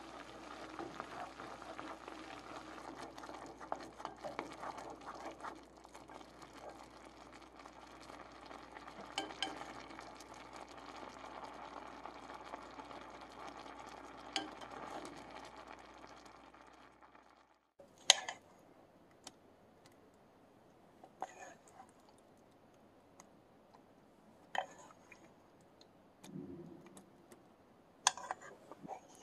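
Brown sugar syrup with tapioca pearls bubbling in a small saucepan as it reduces, with a wooden spoon stirring and scraping, scattered clicks among the bubbling. The bubbling stops after about 17 seconds, and a few separate sharp knocks of a wooden spoon against a bowl follow.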